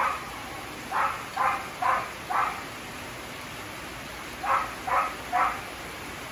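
A dog barking over the steady hiss of heavy rain: one bark at the start, a run of four about a second in, then three more near the end.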